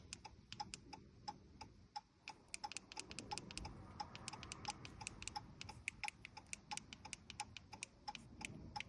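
Rapid, even mechanical ticking, about three to four ticks a second, running steadily while a key fob is programmed to the car.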